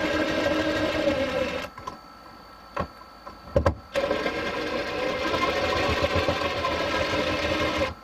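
Power drill running steadily as it drives a screw, stopping for about two seconds with a couple of clicks, then running again for about four seconds.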